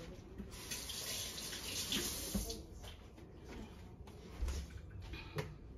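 Kitchen sink tap running for about two and a half seconds while hands are washed under it, then stopping. A couple of light knocks follow near the end.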